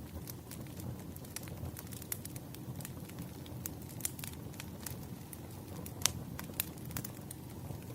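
Wood fire crackling: a low steady rumble of flames with irregular sharp pops and snaps, the loudest pop about six seconds in.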